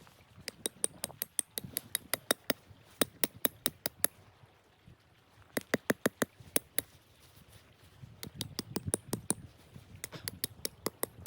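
Sharp, irregular crackling clicks coming in bursts of several a second, with short pauses between the bursts.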